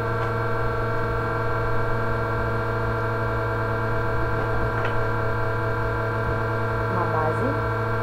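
Electric fan running with a very loud, steady hum and a set of steady whining tones above it.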